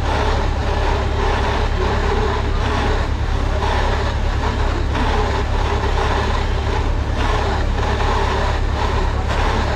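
Farm tractor engine running steadily under load, a constant heavy drone.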